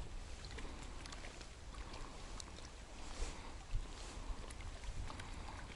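Wind rumbling unevenly on the microphone over faint water lapping at the shore, with a few small ticks.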